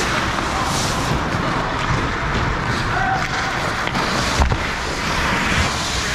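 Ice hockey game sound close to the goal crease: skates scraping and carving the ice under a steady low rumble, with one sharp knock about four and a half seconds in.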